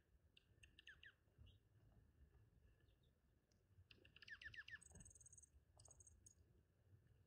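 Faint calls of small birds: quick runs of descending chirps about half a second in and again around four seconds in, then high buzzy notes around five and six seconds, over scattered light clicks.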